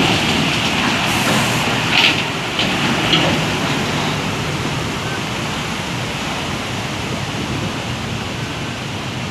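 Vehicles driving through deep floodwater on a road: a steady rush of churned, surging water mixed with traffic noise, with a few sharper splashes about two to three seconds in.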